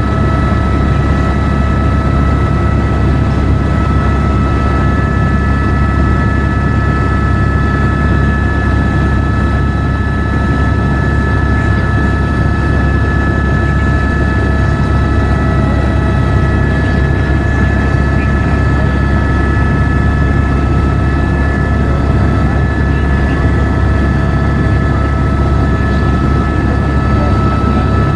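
Helicopter in flight, heard from inside the cabin: a loud, steady drone of rotor and engine with a steady high whine on top.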